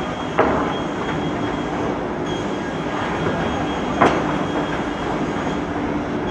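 Single-shaft multi-blade circular saw (Perun MSP-1500 type) running and ripping thick plywood into strips: a loud, steady machine noise with a constant tone. Two sharp knocks, one just after the start and a louder one about four seconds in.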